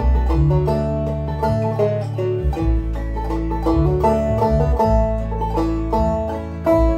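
Deering Clawgrass 2 banjo played clawhammer style, picking out a slow folk melody over a Band-In-A-Box backing track with long held bass notes.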